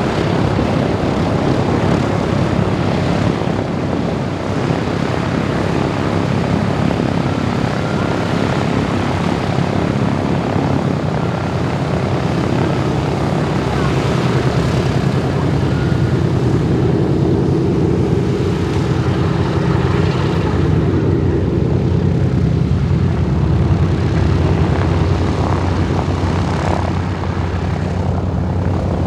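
Boeing B-17G Flying Fortress's four Wright R-1820 Cyclone radial engines and propellers running loudly and steadily, the engine note growing stronger and more even about halfway through.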